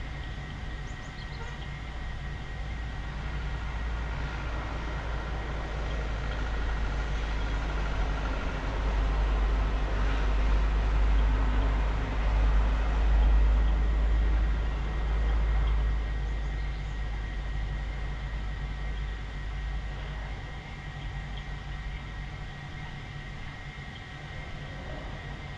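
A vehicle passing on the road below: a low engine-and-tyre rumble that grows louder to a peak about halfway through, then fades away.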